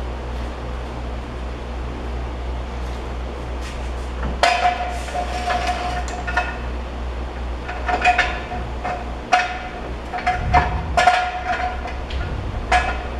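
Repeated metallic clanks and clinks with a ringing tone, beginning about four seconds in, as metal tools and parts knock together during work on the car. A steady low hum runs underneath.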